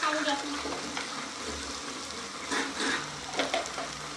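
Potato wedges and sliced onions sizzling in oil in a wok: a steady frying hiss, with a few sharp clicks past the middle.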